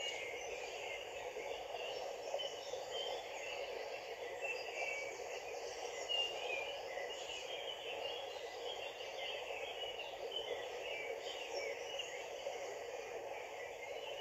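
Steady rush of river water, with small birds chirping again and again throughout.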